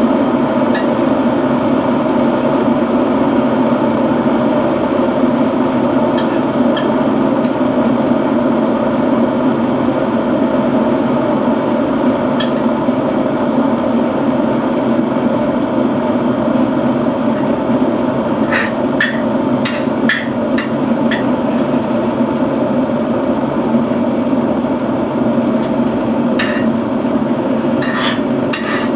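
REDMOND RK-M1441 electric kettle heating water toward the boil: a steady, loud rumbling of the water. A cluster of short sharp clicks comes about two-thirds of the way through, and a few more near the end.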